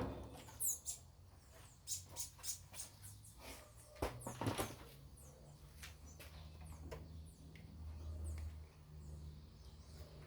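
Scattered light clicks and taps of parts being handled while a top-loading washing machine is taken apart, with short high chirps now and then over a faint low hum.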